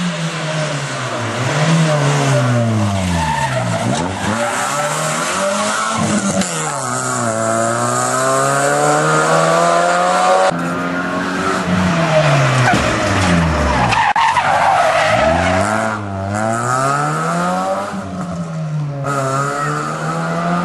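Rally car engine at full throttle, its pitch climbing through the gears again and again and dropping sharply as the driver lifts and brakes for corners. The sound jumps abruptly a few times where separate roadside shots are cut together.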